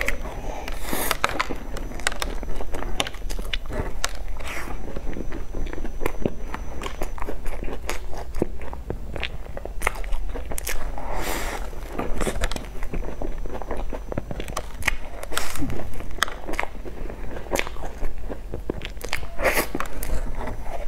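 Close-miked biting and chewing of crumb-topped cream puffs: a steady run of small crackles from the crisp crust, with louder bites about a second in, around the middle and near the end.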